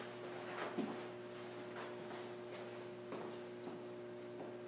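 A steady, faint hum, with soft irregular ticks about once or twice a second.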